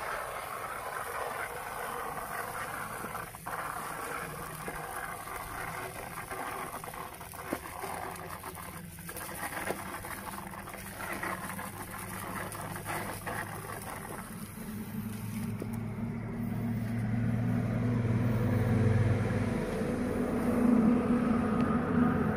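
A motor running steadily, its low hum growing louder over the last third, over a rustling hiss with scattered light clicks.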